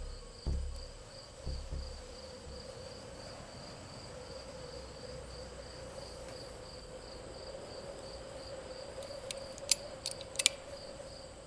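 Crickets chirping in a steady pulsing trill over a low held hum, with a couple of soft low thuds early on. Near the end come a few sharp metallic clicks, a revolver's hammer being cocked.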